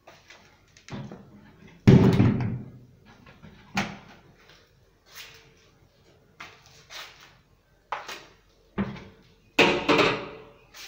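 Wooden kitchen cabinet doors of HDF board being swung open and shut, giving a string of knocks and bangs, the loudest about two seconds in and again near the end.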